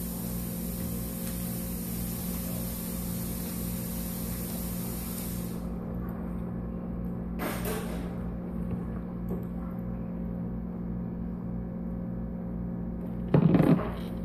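A steady machine-like hum with a low, regular pulsing. Near the end comes a brief loud burst of handling noise.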